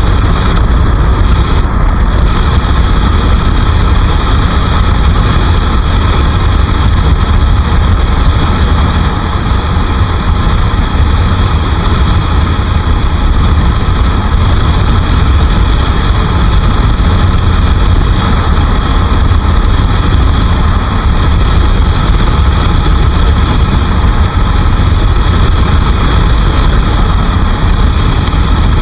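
Bajaj Pulsar RS 200's single-cylinder engine running steadily on the move, under a heavy wind rumble on the microphone.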